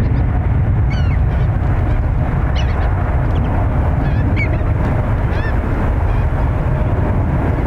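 Birds calling in short arched notes, about half a dozen times, over a steady low rumble.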